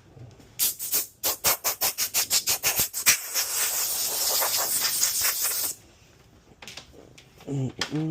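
Compressed air hissing: a run of quick short puffs, about five a second, then a steady blast lasting a couple of seconds that stops suddenly. Two short pitched vocal sounds follow near the end.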